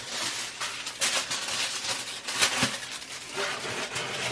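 Aluminium foil crinkling and rustling as it is handled, with a few sharper crackles.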